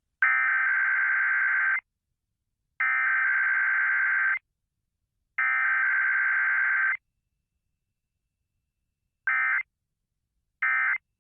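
Emergency Alert System SAME data tones from an EAS test: three header bursts of about a second and a half each, a second apart, then two short end-of-message bursts near the end.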